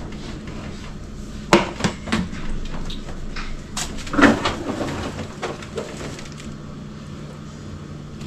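A metal sheet pan of waffles being set into a freezer drawer among frozen bags: several scattered knocks and clatters of the pan and freezer contents, the loudest a little past four seconds in. A faint low steady hum sits underneath.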